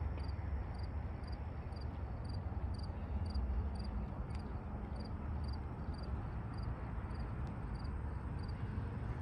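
Road traffic, a steady low rumble. A faint high chirp repeats about twice a second over it.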